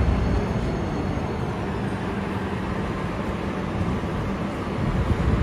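Calgary CTrain light-rail train slowing to a stop at a platform: its low rumble dies down and a faint motor whine falls in pitch and fades about two seconds in, leaving a steady hum.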